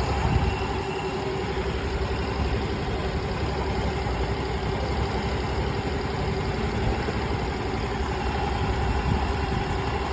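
Yamaha RS Neo 125 scooter's single-cylinder engine idling steadily, with a low rumble and a steady hum from the drive.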